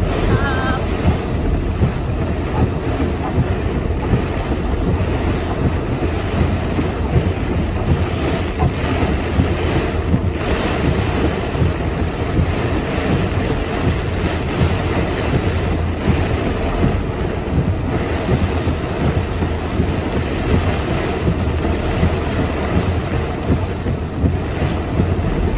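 Heavy rain and strong storm wind heard from inside a moving van: a steady, loud rush with a deep rumble underneath.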